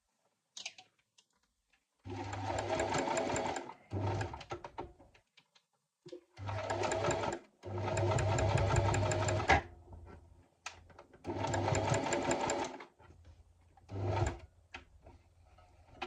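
Electric sewing machine stitching in about six stop-start runs of half a second to two seconds each, while sewing a tack. It does not sound good to the sewist, and the seam comes out with a big black bunch of thread at the back, typical of thread nesting under the fabric.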